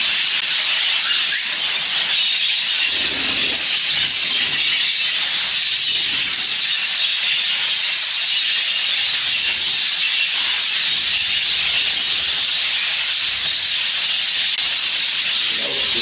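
Many exhibition budgerigars chattering and warbling at once in a bird room, a steady, high-pitched wash of sound.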